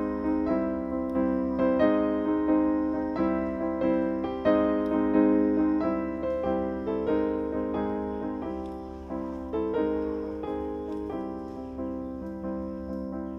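Background piano music: a steady run of gentle notes, each struck and fading away.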